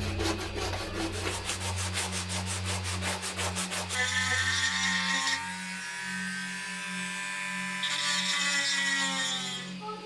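Cast iron hammer head rubbed back and forth on sandpaper in quick, even strokes. From about four seconds in, a small handheld rotary tool runs against it with a steady whine that rises and falls slightly, then stops just before the end.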